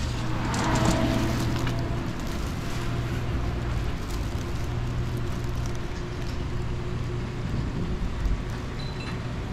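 Night street ambience in a market alley: a steady low hum with a light even hiss, and a brief louder rush about a second in.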